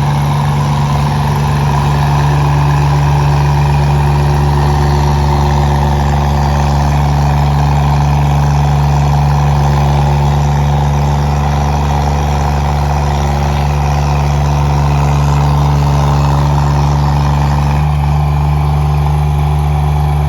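Engine of a 1600 kg remote-controlled hydraulic road roller running at a steady speed, with a slight change in tone near the end.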